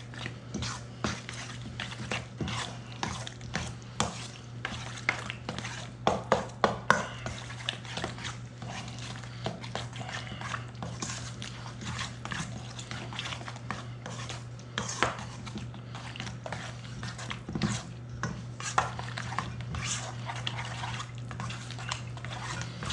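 A utensil stirring a wet egg, yogurt and milk mixture in a big bowl, with irregular scraping and clicks against the bowl.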